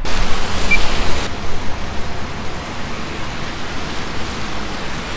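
Steady rush of street noise from road traffic, with a brighter, louder hiss for about the first second that then drops to a steady lower rush.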